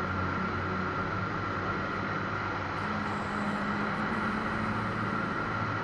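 Eurofox light aircraft in cruise, heard inside the cockpit: the engine and propeller drone steadily, with a thin steady high whine above them.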